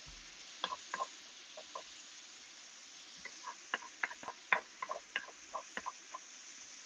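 Spinach and Marsala sauce cooking in hot skillets while a spatula and tongs stir it: irregular light clicks and taps against the pans over a faint steady sizzle.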